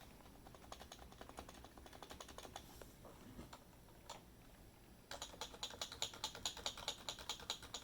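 Typing on two Happy Hacking Keyboards with Topre switches, one of them the silenced Type S, side by side for comparison. First comes a soft run of fast keystrokes, then about five seconds in a louder, sharper run of clacking on the second keyboard.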